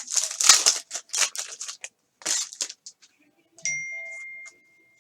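Crinkling and rustling of a foil trading-card pack wrapper and cards being handled, in quick crackly bursts. About three and a half seconds in, a click sets off a thin, high ringing tone that fades slowly.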